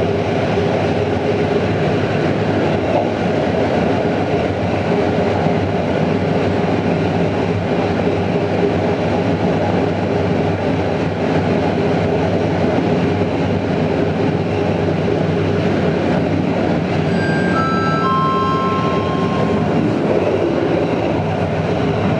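Passenger train running along the line, with the steady rumble and running noise of the carriage on the rails. About 17 seconds in, a short three-note falling tone sounds, the last note held for about a second and a half.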